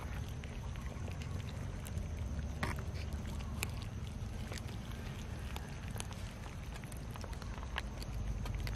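A group of cats eating rice from a metal tray: many small scattered clicks and chewing noises over a steady low rumble.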